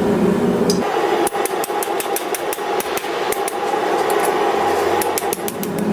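A blacksmith's hammer striking hot steel on the anvil in a quick, even run of about four to five blows a second, curling over the end of a forged door handle. Before the blows start, a steady drone cuts off about a second in.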